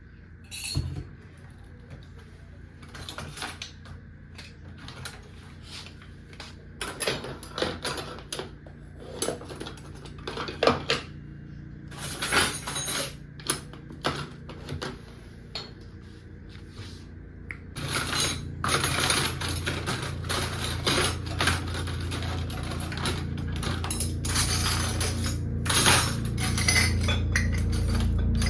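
Dishes, pots and cutlery clinking and clattering in irregular knocks while kitchen work is done. About two-thirds of the way in, a steady rushing noise starts and grows louder.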